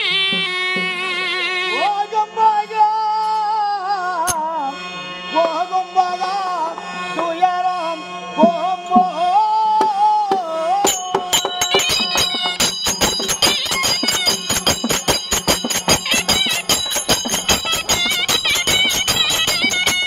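Tamil folk music: a short double-reed pipe plays a wavering melody, then a male voice sings a verse over a steady drone. About eleven seconds in, hand cymbals and drum strokes come in, keeping a fast, even beat under the pipe.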